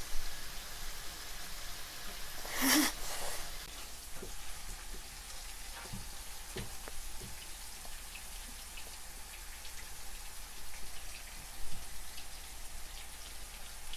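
Oil heating in a frying pan, sizzling faintly with scattered small pops and crackles. A brief louder noise comes about three seconds in.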